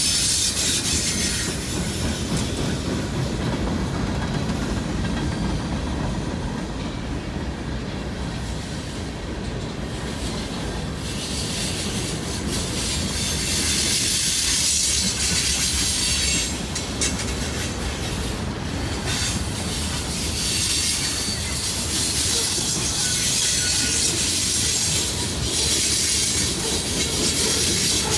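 Norfolk Southern freight train rolling past: a steady rumble of cars and wheels on the rails, with high-pitched wheel noise that swells and fades several times.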